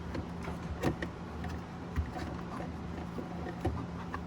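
A few small clicks and knocks as a wire connector is worked onto the pins of a refrigerator ice maker sensor board, over a steady low background hum.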